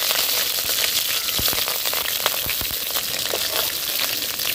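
Curry leaves sizzling in hot gingelly (sesame) oil in a kadai, a steady frying hiss with scattered crackles.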